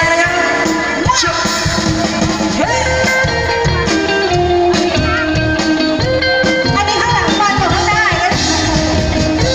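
Live band music played loud through a stage PA, with a fast steady drum beat under a wavering lead melody.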